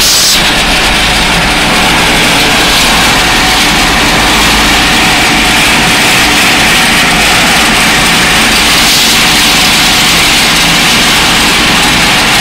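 John Deere 6920 tractor running steadily under load while driving an NC 200 trailed silage harvester, which chops grass and blows it up the spout into a trailer: a loud, unbroken mechanical din heard from inside the cab.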